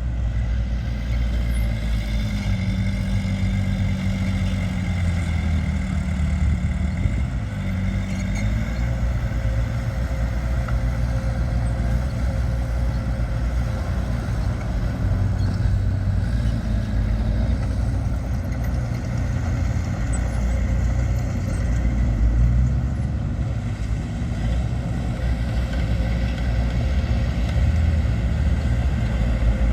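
Diesel engine of heavy earthmoving machinery running with a steady low rumble, its pitch shifting a little a few seconds in.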